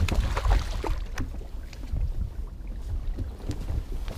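Wind rumbling on the microphone, heaviest in the first second, with scattered knocks and splashes as a bass is hauled out of the water and swung aboard the boat.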